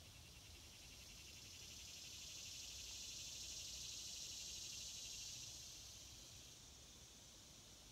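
A singing insect's faint, high buzzing trill that swells over a few seconds and fades away about six seconds in.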